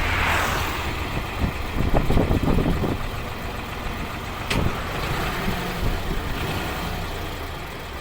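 Engine running steadily at idle, with irregular knocks and clatter between about one and a half and three seconds in, and a single sharp click about four and a half seconds in.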